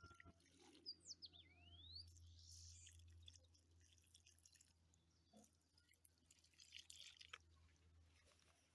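Near silence: faint outdoor ambience with a low steady hum, a brief bird call of quick falling and rising whistles about a second in, and scattered faint rustles and clicks.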